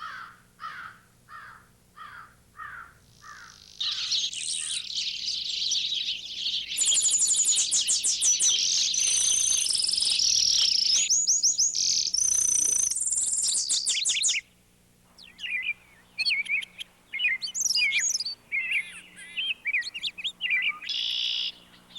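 Songbirds singing. First comes a run of short falling notes, about two a second. Then from about four seconds in, several birds sing at once in fast, high trills, which break off sharply near the middle, followed by scattered chirps and short phrases.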